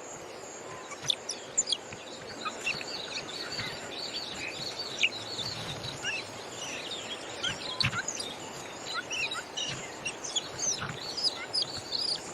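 Birds chirping and tweeting in many short, quick, high calls over a steady hiss of natural outdoor ambience.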